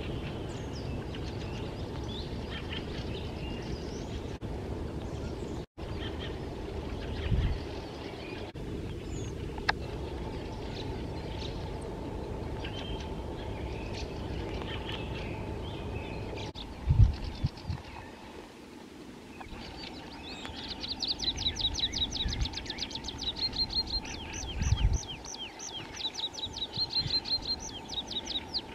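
Steady background noise with scattered faint bird chirps and a few low thumps. From about two-thirds of the way in, a tree pipit sings close by: repeated quick, high phrases of rapid notes.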